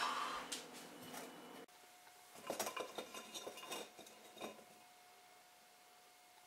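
A loud burp trails off in the first moments. After a cut, a ceramic cookie jar clinks and knocks, a cluster of sharp ceramic clinks over about two seconds as its lid is handled and a hand rummages inside.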